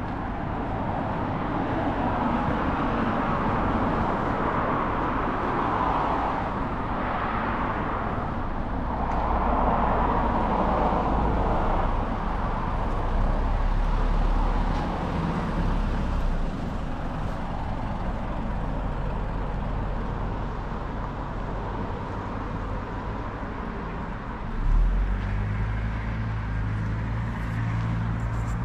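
BMW F90 M5's twin-turbo V8 running steadily under way, with a broad rush of tyre and road noise. About 25 seconds in there is a short louder swell, after which the engine note holds a little higher.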